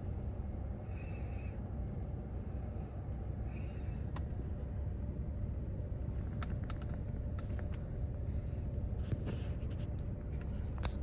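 Steady low rumble of a car driving, heard inside the cabin, with a few faint clicks in the second half.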